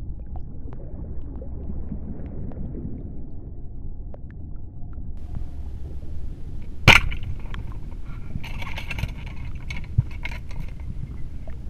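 Underwater ambience heard through a diving camera: a steady low rumble, broken about seven seconds in by a single sharp, loud crack, followed by a few seconds of scattered crackling clicks.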